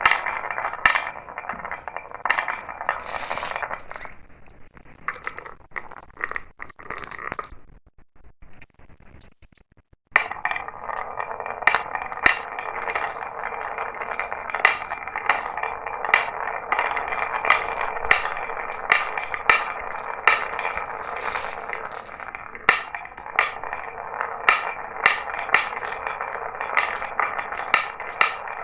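Marbles rolling and clattering down a marble run: a steady rolling rumble dotted with sharp clicks as they hit the track and each other. It dies away about four seconds in, goes almost quiet, then starts up again suddenly near the ten-second mark, with evenly spaced clicks towards the end.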